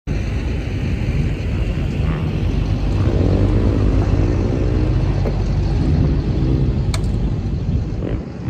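Strong wind buffeting the microphone, a steady low rumble with gusts, with a single sharp click about seven seconds in.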